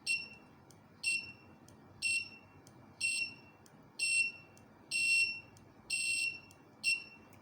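The alarm clock's buzzer giving short high-pitched beeps, about one a second, eight in all; the second beep is faint.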